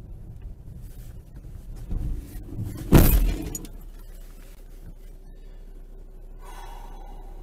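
A car's low driving rumble, then about three seconds in one loud crash as the car strikes something and its windscreen shatters. A quieter steady hum follows, with a faint tone coming in near the end.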